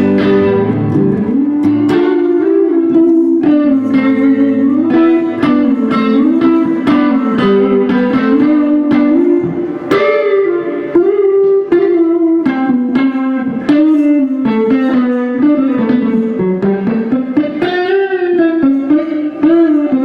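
Instrumental guitar break: a picked guitar melody of many plucked notes, some gliding in pitch, with no voice.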